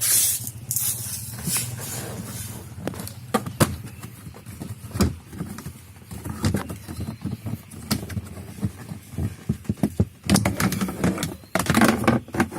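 Plastic dashboard trim around a car's instrument cluster being handled and worked loose by hand: irregular clicks, knocks and rattles, busier near the end, over a steady low hum.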